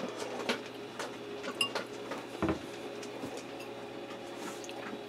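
Quiet kitchen room tone with a steady low hum, a few faint clicks and one soft thud about two and a half seconds in.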